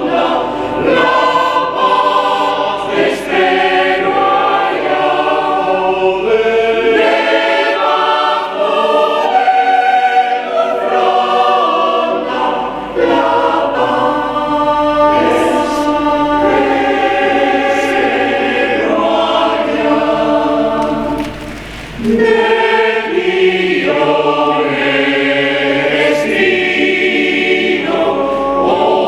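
Mixed choir singing unaccompanied, in several parts, with sustained chords moving from note to note. There is a brief breath between phrases about three quarters of the way through.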